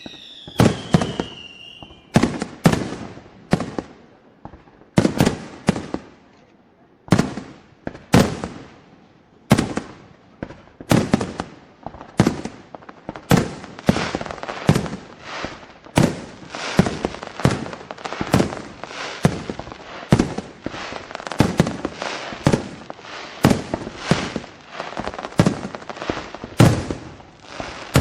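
Fireworks display: aerial shells bursting with sharp, echoing bangs, sparse for the first several seconds and then coming steadily at one to two a second. A falling whistle sounds in the first two seconds.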